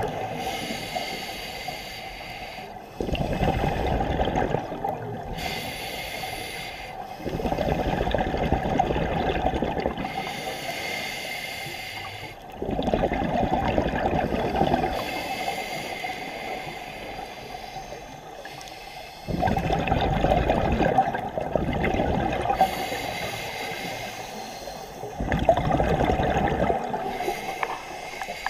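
Scuba regulator breathing: a hiss on each inhale, then a loud bubbling rush of exhaled air. Five breaths come a few seconds apart.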